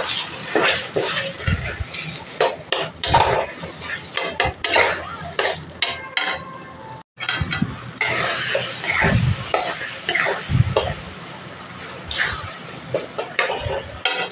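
Steel spatula scraping and clinking against a metal pan in quick irregular strokes, stirring and mashing brain into a thick onion-tomato masala as it fries, with a low sizzle underneath. The strokes break off briefly about seven seconds in.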